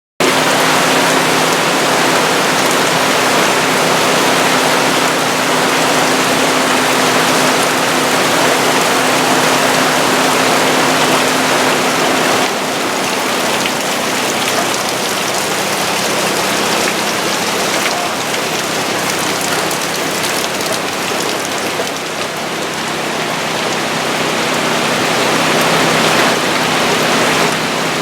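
Steady, loud rush of water, with a faint low hum underneath.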